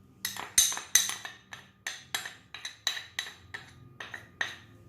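A metal utensil clinking repeatedly against a saucepan holding milk, sugar and custard powder, about a dozen sharp ringing clinks at an uneven pace.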